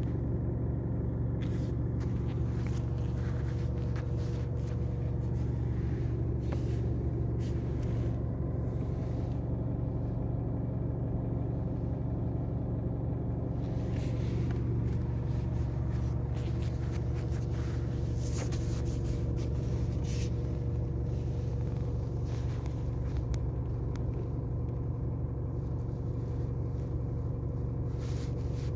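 Car engine idling steadily, a constant low hum heard from inside the cabin of the stationary car.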